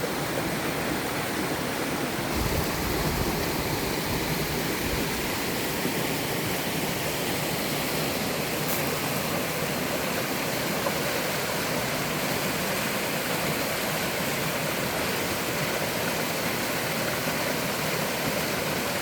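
Steady rush of water sliding and cascading down a three-tiered slide waterfall into a mountain stream, with a brief low rumble about two seconds in.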